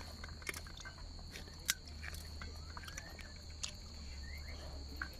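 Eating rice and pork curry with the fingers from a steel plate: scattered clicks and scrapes of the hand mixing food on the plate, and chewing. A steady high insect trill runs underneath.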